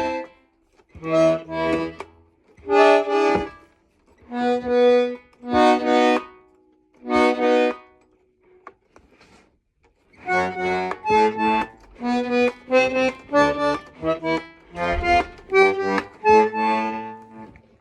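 A Belarus garmon, a Russian button accordion, being played: separate held chords with short pauses between them, then from about ten seconds in a quicker run of short chords and notes.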